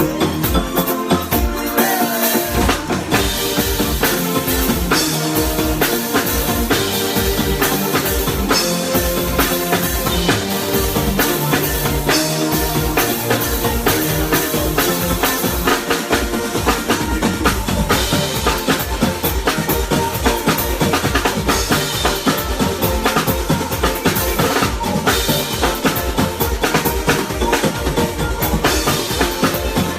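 Live band playing at sound check: a drum kit keeps a steady beat with kick and snare under sustained pitched instruments.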